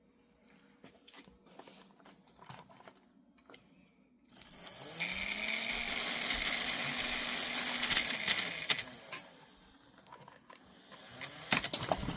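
HO-scale Athearn switcher's electric motor and worm-gear drive, freshly oiled, spinning up about four seconds in with a loud whir and gear rattle. It runs steadily for several seconds, then winds down. A few sharp clicks come near the end.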